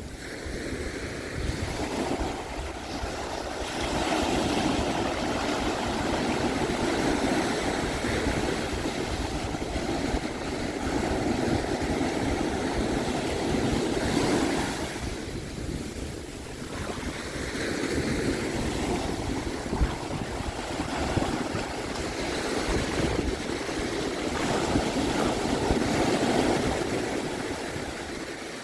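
Pacific Ocean surf washing onto the beach, swelling and easing in two long surges, with wind rumbling on the microphone.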